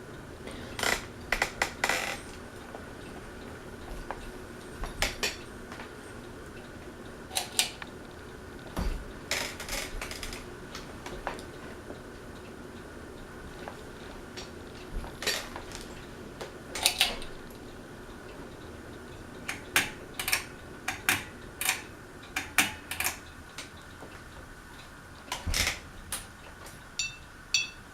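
Encon ceiling fan running on high with a steady faint motor hum, under irregular light metallic clinks and ticks that come in clusters every second or two.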